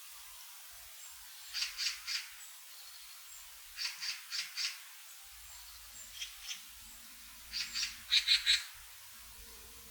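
A wild bird calling in the forest: short calls given in quick runs of three to five, a run every two seconds or so, with the loudest run near the end.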